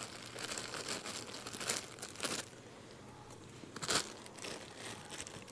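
Crinkling and rustling of a packet being handled, irregular through the first couple of seconds, then quieter, with one sharp click about four seconds in.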